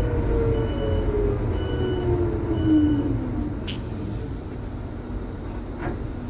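Huade electric low-floor bus's drive motor whining over a low running rumble, its pitch sliding steadily down over the first three seconds. This is the abnormal motor noise that is getting steadily worse.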